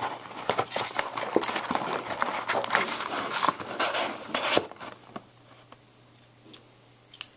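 Plastic wrapping on a box of football trading cards crinkling and tearing as the box is opened. Dense, irregular crackling for about four and a half seconds, then it stops.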